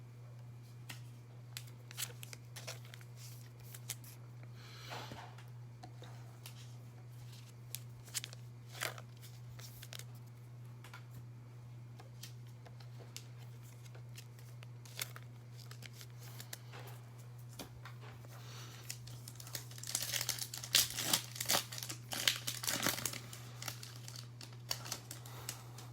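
Faint scattered handling clicks, then, about 19 seconds in, a few seconds of crinkling and tearing as a foil trading-card pack is torn open. A steady low electrical hum runs underneath.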